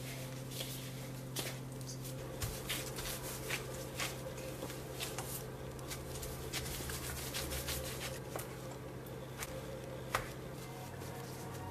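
Hands in disposable plastic gloves kneading and rolling cookie dough, with soft rustles and scattered light taps and pats on the bowl and countertop. A sharper tap about ten seconds in comes as a plastic scraper cuts the dough log. A faint steady hum runs underneath.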